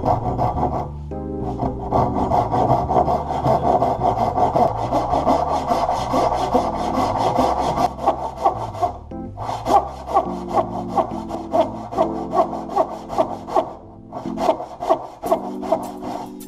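Western handsaw ripping down the grain of a hard maple board in quick, steady back-and-forth strokes. After a short break about nine seconds in, the strokes come more slowly and distinctly, about two a second.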